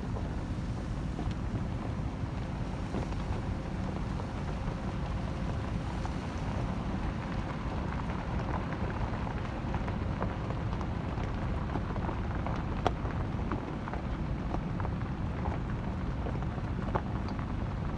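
Wind buffeting the microphone in a steady low rumble, with scattered light ticks and a couple of sharper clicks.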